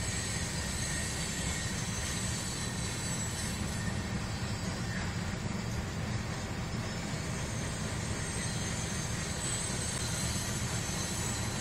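CSX freight train of open hopper cars rolling past with a steady low rumble of wheels on rail.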